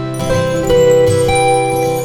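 Background music: plucked string notes over a steady sustained chord, with a new note or chord about every half second.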